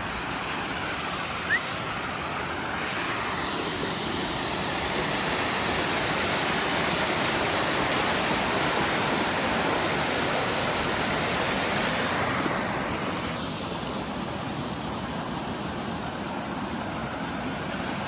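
Stream water pouring over a low line of stones into a shallow pool: a steady rushing splash, louder for several seconds in the middle as the falling water is heard from close by.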